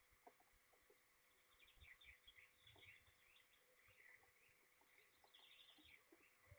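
Faint songbirds singing in the background, a run of many quick chirps and trills, with scattered soft low knocks.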